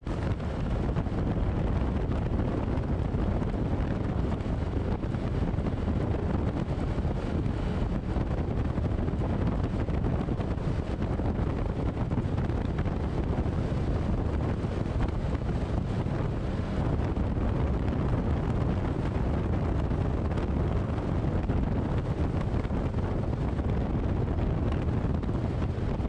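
Steady wind rush buffeting the microphone of a Can-Am Commander side-by-side driving along a gravel road, with the machine's engine and tyre noise underneath.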